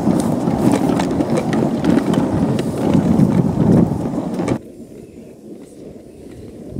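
A boat being dragged over rough grassy, stony ground: a loud continuous scraping rustle with irregular knocks and footfalls. It cuts off sharply about four and a half seconds in, leaving quieter scattered knocks.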